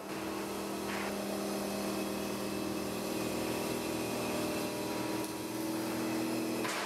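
CNC line boring machine running: a steady hum from its spindle drive over the hiss of coolant spraying onto the boring bar as it cuts a bore in a steel lug.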